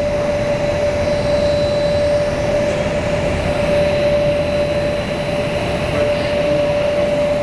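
Indoor skydiving vertical wind tunnel running: a steady rush of air from its fans, with a constant whine held over it.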